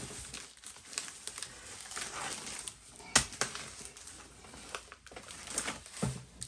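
Plastic packaging crinkling and rustling as it is handled and pulled away, with scattered small clicks and one sharper knock about three seconds in.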